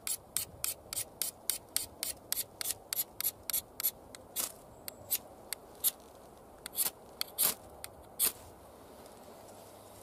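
A steel edge scraped in quick strokes along a new Exotac ferrocerium rod, taking the factory coating off an unused rod. About four or five scrapes a second for the first four seconds, then slower, scattered strokes that stop a little after eight seconds.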